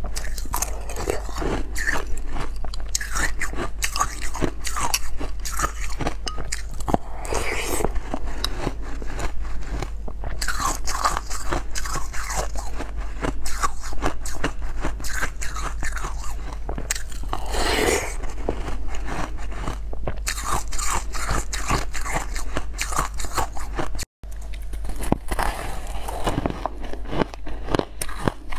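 A person crunching and chewing ice: spoonfuls of crushed yellow ice, then bites off a frost-coated ice block. Dense, irregular crunches throughout, broken by a momentary dropout near the end.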